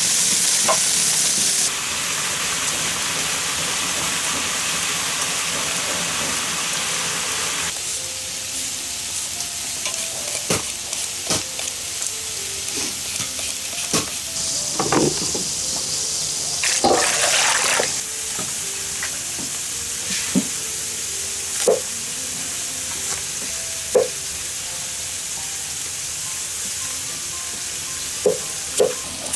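Duck braising in sauce in a large wok, sizzling steadily over a low fire for the first several seconds. Then scattered knocks and a short scraping burst as potatoes are peeled, and two sharp chops of a cleaver on a wooden board near the end.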